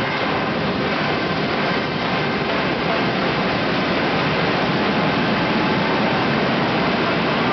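Large arena crowd cheering, a loud, steady, even noise.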